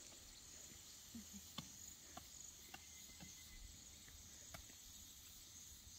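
Near silence, with a few faint, scattered short clicks.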